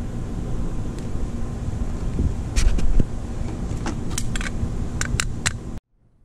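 Steady low wind rumble on the microphone, with a scatter of sharp clicks from about halfway in as the top vent of a Kamado Joe ceramic grill is closed down to let the temperature drop. The sound cuts off suddenly near the end.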